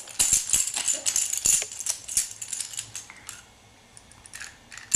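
A baby's plastic toy rattling and clicking as it is handled, in quick bursts over the first three seconds, then going quiet.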